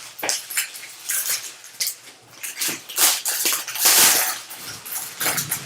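Trading cards and their pack being handled: irregular crinkling and rustling, with cards sliding and flicking against each other.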